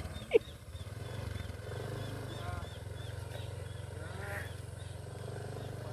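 Motorcycle engine running at low speed, a steady low rumble. A sharp knock comes just after the start, and short high chirps repeat over the rumble for the first few seconds.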